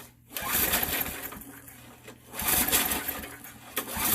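Murray lawn mower's small engine being pull-started: two rattling surges of about a second each as the recoil starter spins it over, without the engine catching. It has no choke and has just been primed, and the owner reckons it needs more fuel.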